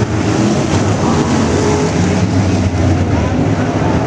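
A pack of IMCA Modified dirt-track race cars' V8 engines running hard together as they race, a loud, steady mix of engine notes.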